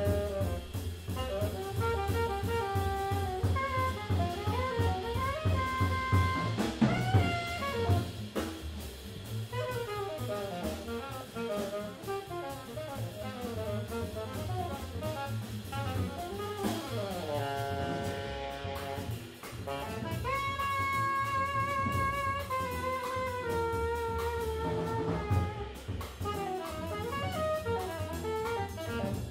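Small jazz group of saxophone, trumpet, trombone, bass and drum kit playing, with no chord instrument: the horns carry the melody over bass and drums. There is a sliding fall in pitch near the middle, then a long held horn note.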